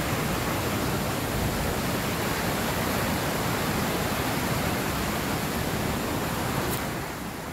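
Steady rush of a rain-swollen creek pouring over rapids and small waterfalls, a little quieter near the end.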